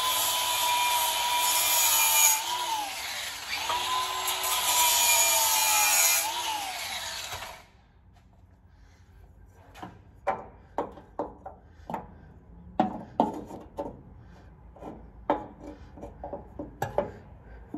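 A handheld power grinder takes metal off the car's floor for driveshaft clearance. Its whine dips in pitch twice as it bites, then it stops abruptly about seven seconds in. After that comes a run of irregular light metal knocks and taps as a tube is offered up to the underside by hand.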